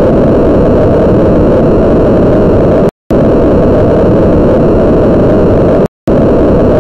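Loud, steady rushing noise, strongest in the low range, broken by two brief total silences about three and six seconds in.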